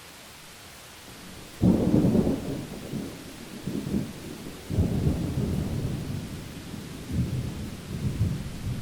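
Thunderstorm: a steady hiss of rain, then a sudden loud thunderclap about one and a half seconds in, rolling on as a rumble, with a second clap about halfway through that also rumbles on.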